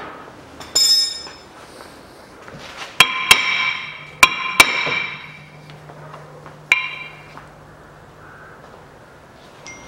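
Hammer blows on a seized steel brake disc to knock it off a VAZ 2110 front hub: a sharp clink about a second in, then five strikes between about three and seven seconds in, each leaving the disc ringing.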